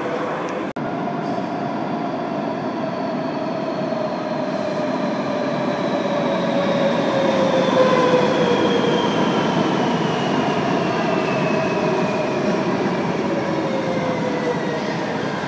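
Madrid Metro series 3400 electric train running into the station, its motors whining in several tones that fall steadily in pitch as it slows over the rumble of the wheels. It is loudest about halfway through, as the front car passes.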